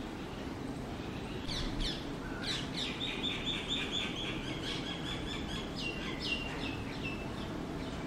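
Red-vented bulbul nestlings begging at the nest as the parent feeds them: high chirps start about a second and a half in, run into a fast series of repeated notes, about five a second, and end in a few falling notes.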